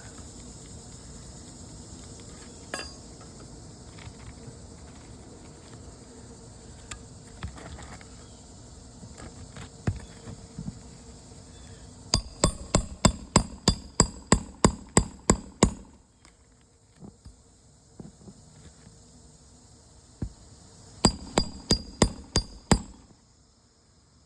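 A hammer strikes a roof snake, a nail-driving tool slipped under the shingles, to set roofing nails. A quick run of a dozen or more metallic blows, about four a second, stops; a few seconds later about six more follow. Insects buzz steadily underneath.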